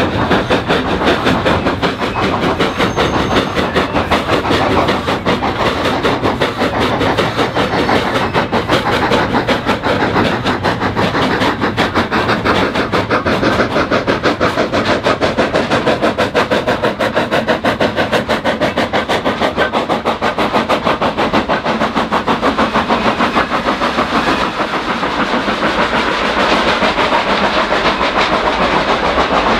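Bellerophon, an 1874 Haydock Foundry steam tank locomotive, working past with a train of hopper wagons: a continuous, loud rhythmic clatter of the wagons rolling and rattling over the track, with the engine's working steam running underneath.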